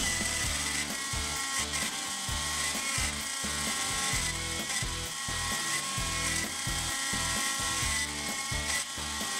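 X-Carve CNC router running a carving job: the router spindle whines steadily while the stepper motors hum at pitches that change every fraction of a second as the axes move.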